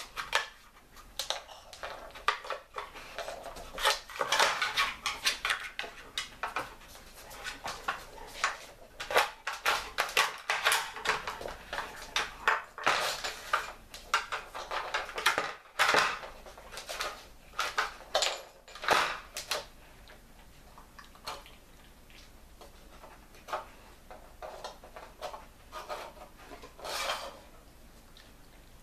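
Dog pawing and nosing a wooden treat-puzzle board with plastic pieces on a laminate floor: irregular clattering and knocking of wood and plastic. The clatter is busy for the first twenty seconds or so, then thins out to occasional taps.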